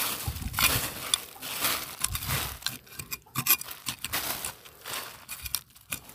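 Machete blade scraping and hacking through loose soil littered with plastic rubbish, in quick irregular strokes with crinkling and crunching.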